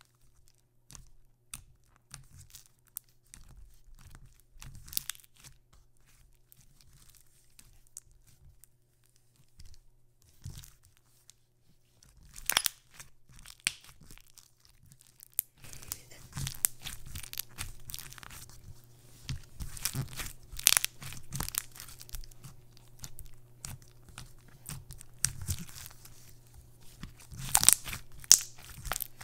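Purple slime being squeezed and kneaded by hand, giving irregular wet crackles, pops and squelches. They are sparse at first and come thick and louder from about halfway, with the loudest squelches near the end.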